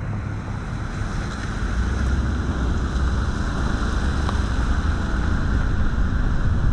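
Steady road noise from a car driving on wet pavement, with wind rushing over a microphone mounted outside on the car. A low rumble underlies a hiss throughout.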